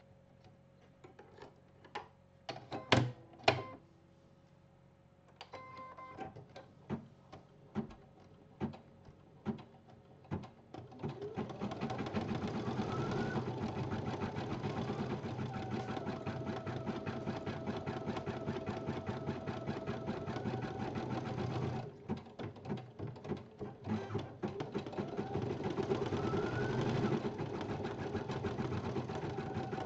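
BP1530L embroidery machine: a few clicks and taps while the thread is set at the needle, with a short beep about six seconds in. About eleven seconds in the machine starts stitching steadily at speed; it drops to a few separate stitches about 22 seconds in, then picks up again.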